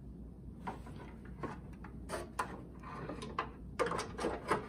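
Scattered clicks and knocks as a BSR C129R record changer is handled and its hinged deck is lowered back into a wooden cabinet. The knocks come closer together and louder in the last second.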